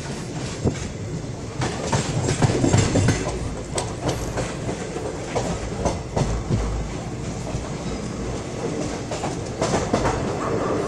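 Indian Railways passenger express coach running, heard from its open door: a steady rumble with irregular clicks and clatter of the wheels on the track.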